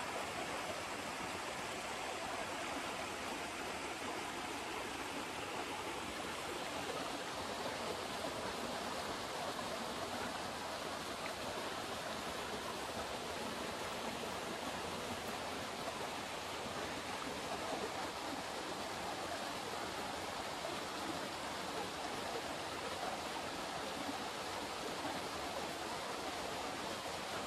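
Small stream flowing steadily: an even, continuous rush of water.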